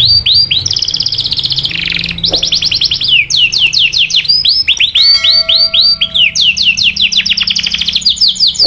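Domestic canary singing the rapid "cuit cuit" call: quick series of falling chirps, with a fast trill about a second in and a steady held note midway.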